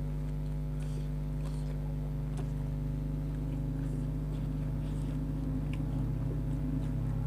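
Steady low hum from a motor or electrical device, with a few faint clicks of eating over it.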